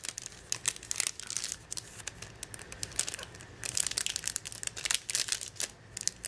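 Packaging of a pack of paper die cuts crinkling and rustling in irregular clusters of crisp clicks as it is handled.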